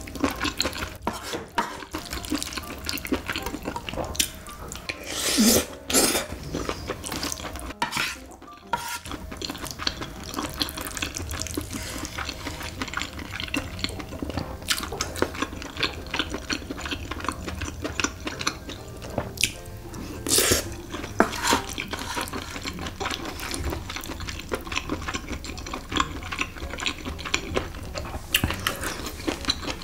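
Close-miked eating sounds: wet chewing and smacking of sauce-coated rice, with a wooden spoon scraping and stirring in a metal pan. There are two louder bursts, a few seconds in and about two-thirds of the way through.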